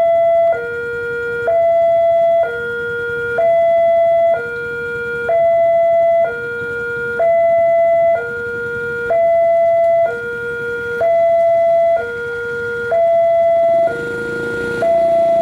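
Railway level-crossing alarm on an Indonesian crossing signal, an electronic two-tone siren from the post's horn loudspeaker alternating between a high and a low tone, each held about a second, warning that a train is coming while the barriers are down.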